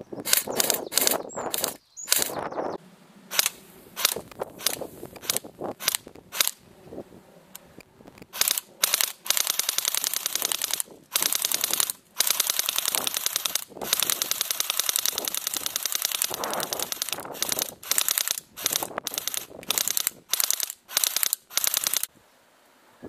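MP5 airsoft electric gun (AEG) test-firing: a string of single shots first, then, from about a third of the way in, long full-auto bursts of rapid clicks with short pauses between them.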